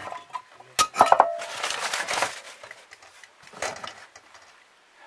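Glass and china tableware clinking as it is handled and shifted, with a few sharp clinks about a second in that ring briefly. Rustling of paper wrapping follows.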